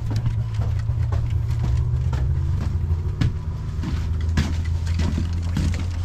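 Polaris Indy snowmobile engine idling steadily after being started following repairs, a continuous low hum with light ticking over it.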